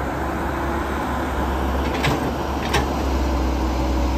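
Heavy diesel engines of a Caterpillar excavator and a loaded dump truck running steadily, with two sharp knocks less than a second apart about halfway through.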